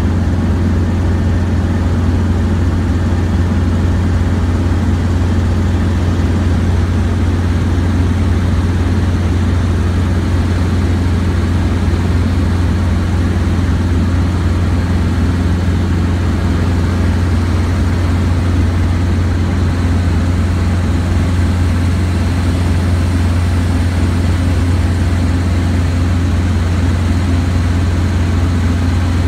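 Robinson R22 helicopter in cruise flight, heard from inside the cabin: its engine and rotors make a loud, steady drone with a strong low hum.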